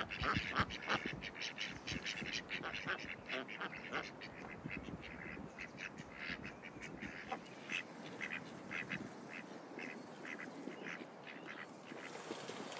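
A small flock of white domestic ducks quacking over and over. The calls come in a quick run for the first several seconds, then come slower and more spaced out.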